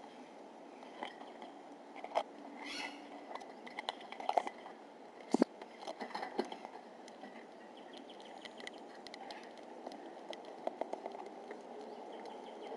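Pygmy marmosets' hands and claws tapping and scraping on a hard plastic treat station, scattered soft clicks with the sharpest about five seconds in. A brief high call comes about three seconds in.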